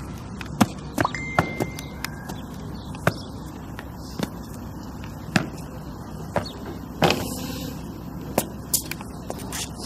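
Cadet's drill boots striking the ground while marching: about ten sharp knocks spaced irregularly over a steady low background hum.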